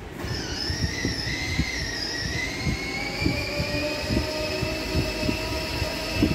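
Electric drive motor and gearbox of a battery-powered ride-on toy motorcycle whining as it drives off. The high whine of several tones starts just after the beginning, with irregular low knocks underneath.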